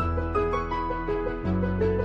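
Background music: a piano-like keyboard melody over held low bass notes, with the bass shifting about one and a half seconds in.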